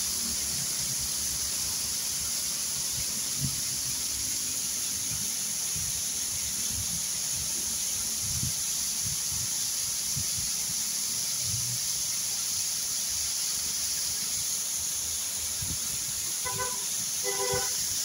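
Waterfall cascading down a rock face: a steady rushing hiss of falling water. Near the end, two short pitched tones sound one after the other.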